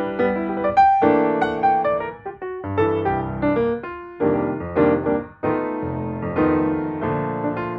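Background piano music: chords and melody notes struck and left to fade.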